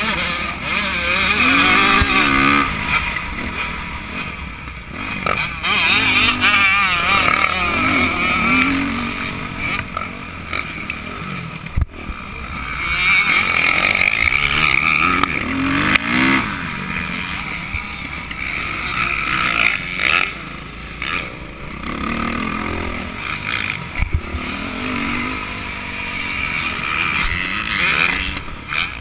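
Dirt bike engine revving up and down again and again as it is ridden round a motocross track, heard from a helmet-mounted camera, with two sharp knocks partway through.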